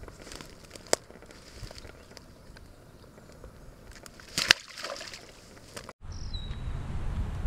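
A short splash about halfway through as a largemouth bass is let go into the shallow pond water, among a few small handling clicks and rustles. Near the end, wind rumbles on the microphone.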